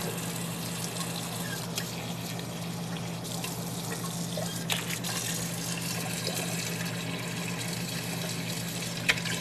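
A thin stream of water running into an aluminium pressure cooker pot over spices and stock cubes, a steady splashing fill. A steady low hum sits underneath, and there are two light clicks, one about halfway through and one near the end.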